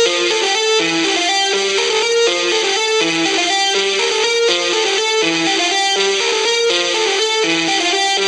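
Background music with a steady, repeating beat.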